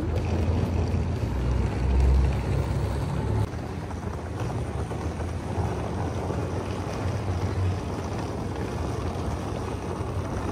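Wind buffeting the microphone over a steady low rumble, louder for the first three and a half seconds and then evening out.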